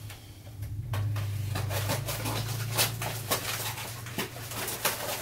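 Knitted baby blankets handled and draped over high-chair trays: fabric rustling with a scatter of soft clicks and taps, over a low steady hum.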